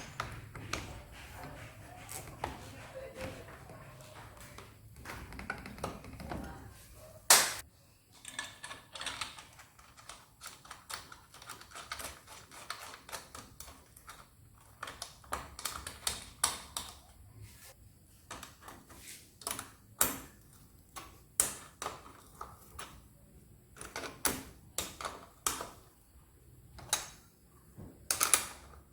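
Irregular sharp clicks and taps, some in quick runs, with one loud knock about seven seconds in.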